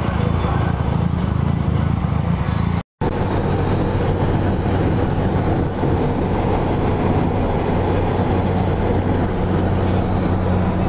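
Engine drone and road and wind noise of a car at highway speed, heard from inside the cabin, steady throughout. The sound drops out for an instant about three seconds in.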